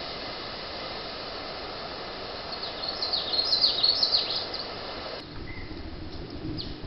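A small bird chirping in a quick run of short, downward-sliding high notes, loudest about three to four and a half seconds in, over a steady hiss from a trail camera's microphone. The hiss drops abruptly about five seconds in, and a few faint chirps follow.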